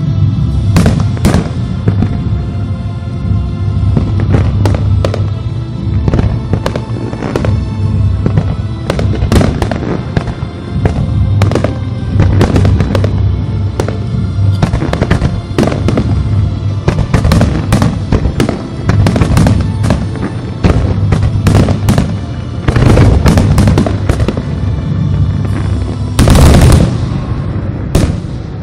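Fireworks display: aerial shells bursting in quick succession, dozens of sharp bangs one after another over music. Near the end a dense salvo of bursts is the loudest moment.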